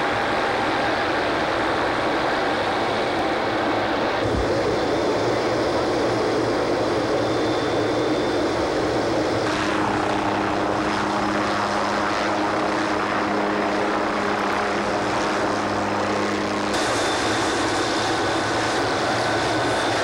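Helicopter engine and rotor running steadily at close range. The sound shifts abruptly a few times, as between different shots.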